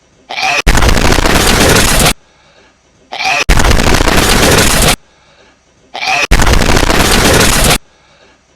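Looped sneezing-hedgehog meme audio: each time a short, small sneeze-like sound is followed by a burst of very loud, heavily distorted noise lasting about a second and a half. The cycle comes three times, about every three seconds, with near quiet in between.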